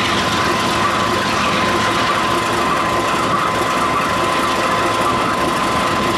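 Diesel-electric freight locomotives running as they pull a train past at low speed: a steady engine sound with a constant high whine over it.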